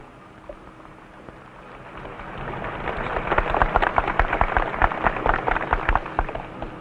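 Crowd applauding after a speech: the clapping swells about two seconds in and dies away near the end.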